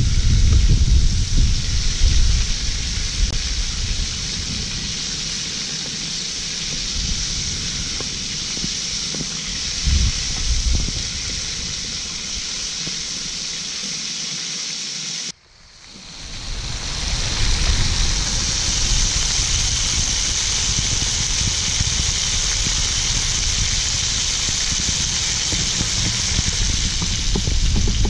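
Octopus frying in oil in a wok over a wood fire: a steady sizzle, with low wind rumble on the microphone. About halfway through the sound cuts out abruptly and fades back in over a couple of seconds.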